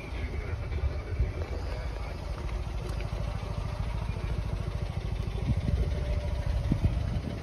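1985 Honda Acty kei truck's small two-cylinder engine idling with a steady low pulse, a little louder near the end.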